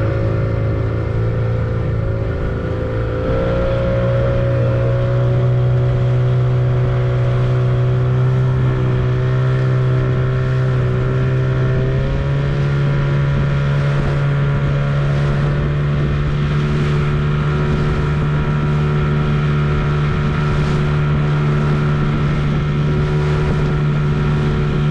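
Small outboard motor driving a boat under way, running steadily; its revs step up about three seconds in and again about halfway through.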